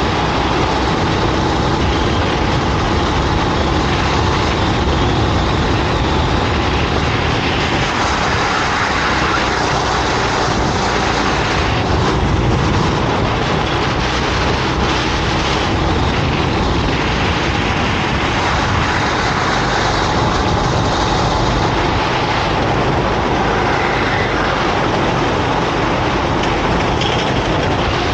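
Go-kart engine running hard at racing speed, heard close up, a loud even noise with a faint steady engine tone underneath and no clear gear or rev changes.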